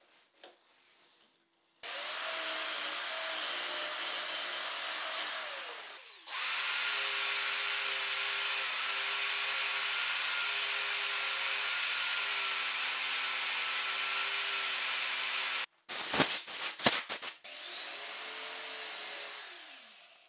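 Electric drill spinning a felt polishing disc: it starts, runs steadily with a steady whine and winds down, then runs again, longer and louder with a rushing hiss as a steel cup is held against the disc and polished. It stops abruptly, a few sharp knocks follow, and it runs once more, winding down near the end.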